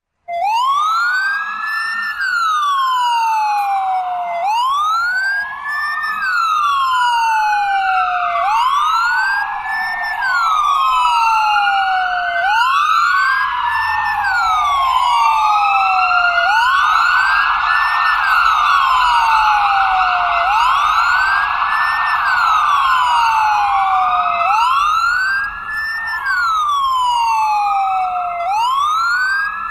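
Ambulance siren in wail mode: a tone that rises quickly and falls more slowly, repeating about every four seconds. A second wail overlaps it.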